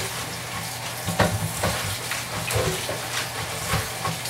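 Tap water running and splashing onto collard greens in a colander in the kitchen sink, with irregular splashes and leaf rustles as the greens are tossed and scrubbed in the rinse to get the grit off.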